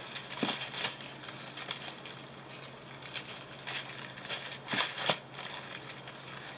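Small plastic bags of diamond-painting drills crinkling and rustling as they are handled, with scattered clicks. The loudest crinkles come about half a second in and again around five seconds in.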